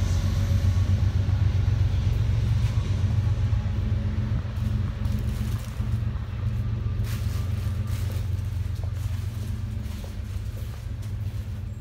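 A steady low droning rumble that slowly fades, with a few faint clicks midway.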